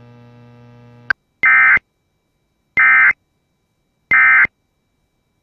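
Emergency Alert System end-of-message tones: three short, identical bursts of digital data squawk, about a second and a half apart, the signal that closes the broadcast alert. A second of faint hum and a click come before them.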